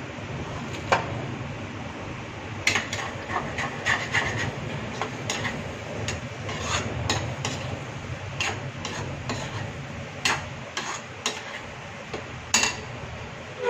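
Metal spatula scraping and stirring bottle gourd and gram flour in a steel kadhai during the dry-frying stage, in irregular scrapes and knocks against the pan over a low steady hum. A ringing metal clink comes right at the end.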